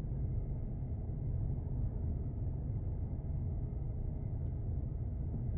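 Steady low rumble of a car driving slowly along a city street, engine and tyre noise, with a faint steady high tone above it.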